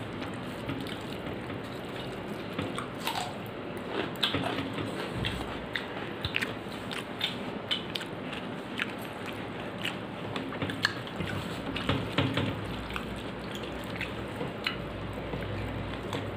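A person eating rice, dal and potato-paneer curry by hand: fingers mixing and squishing the food on the plate, and chewing, with irregular small clicks and smacks.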